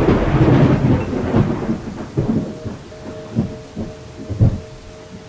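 Thunder with rain: a long roll of thunder, loudest in the first second or so, that dies away through a few further rumbles.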